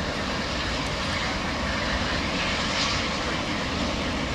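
Burning propane venting from an LPG storage tank: a steady rushing noise that swells a little in its upper part just before the middle.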